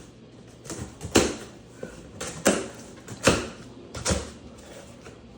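Heavy cardboard shipping box being opened: about six short, sharp rasping strokes of cardboard and packing being handled, the loudest about a second in.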